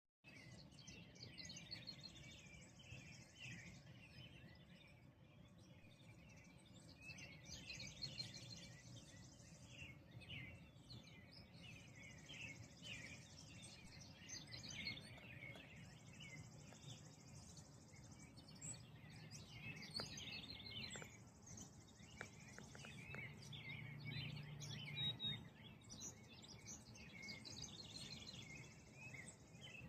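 Faint pre-dawn bird chorus: many small birds chirping and calling over one another, with a high buzzy trill that repeats about every four seconds, over a low steady hum.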